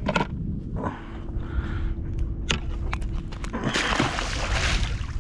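A few sharp clicks and knocks of handling at the boat's side, then about four seconds in a splash lasting around a second as a released stingray hits the water and thrashes at the surface.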